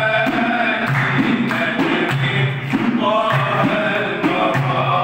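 A group of men singing an Arabic religious ibtihal (inshad) together, sustained melismatic chanting in unison, with a faint regular beat under the voices.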